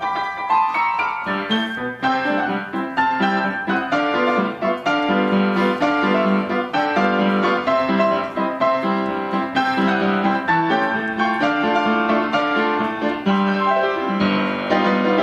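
Background music on piano, a busy run of notes that keeps up steadily.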